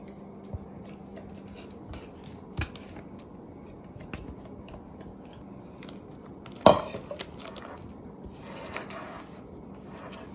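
Silicone spatula stirring a thick yogurt-and-spice marinade in a glass bowl: quiet scraping and squishing, with a few light knocks on the glass and one sharper knock about two-thirds of the way through.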